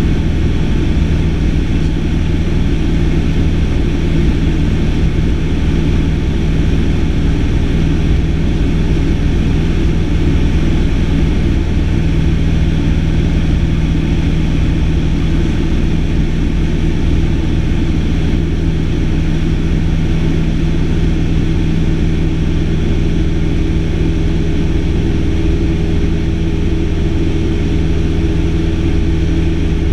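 Single-engine propeller light aircraft's engine and propeller running steadily in flight, heard from inside the cabin as a loud, constant low drone with several steady tones.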